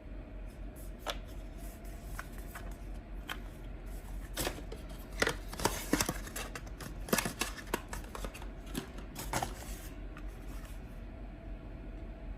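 Product packaging being handled and opened by hand: a run of crackles, taps and clicks, sparse at first, busiest and loudest in the middle, then dying away.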